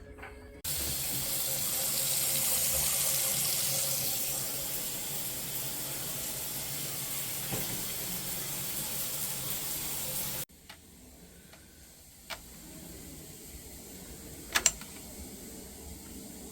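Water pouring steadily from a shower, with a hissing spray; it starts suddenly and cuts off sharply about ten seconds in. After that comes a much quieter stretch with a few sharp clicks.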